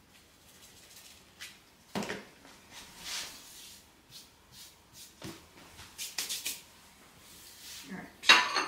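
Kitchen handling sounds: a few scattered knocks and clicks of a plate, knife and containers set down on a benchtop, with a short rustle, then a louder clatter near the end.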